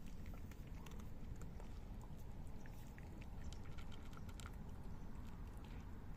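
Two cats eating dry kibble from a plate, crunching it in many small, irregular, crisp clicks.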